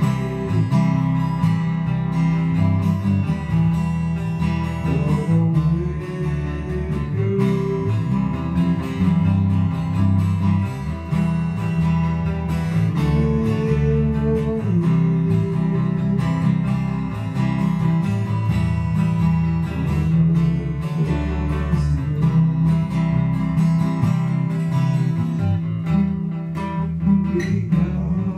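A small band playing guitars together: an acoustic guitar strummed steadily over electric guitar and a strong, full bass line.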